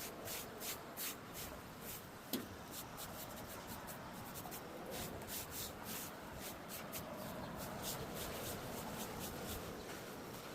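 Irregular scraping and rubbing strokes, with one sharp click about two seconds in.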